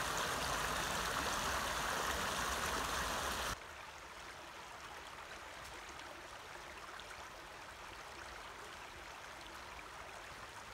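Shallow creek water running and rippling over small rocks. About three and a half seconds in, it cuts off abruptly to a quieter, gentler trickle from a slower stretch of creek.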